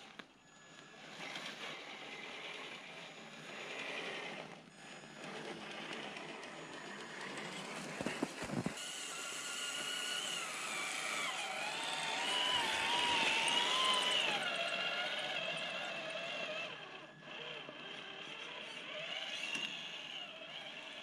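Electric motor and geared drivetrain of a Traxxas TRX-4 RC crawler whining, the pitch rising and falling with the throttle and loudest around the middle. A couple of sharp knocks about eight seconds in.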